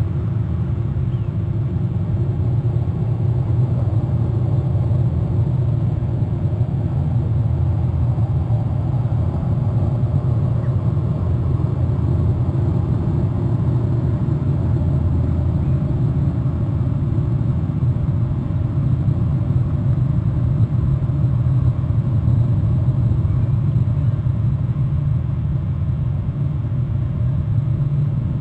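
Steady low rumble of background noise, even and unbroken, with no distinct calls or knocks standing out.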